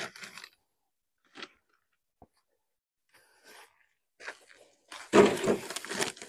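Padded carry bag of an Outwell Coledale folding camping table being handled: a few soft rustles and a click, then a louder burst of rustling and scraping about five seconds in as the bag is set down and opened.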